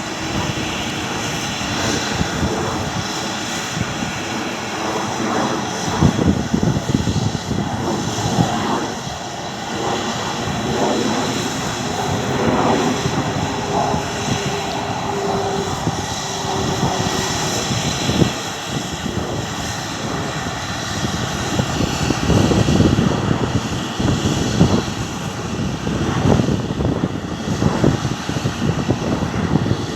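Massey Ferguson Cerea 7278 combine harvester running steadily while harvesting, a continuous machine drone with a high whine, and irregular louder low rumbles coming and going.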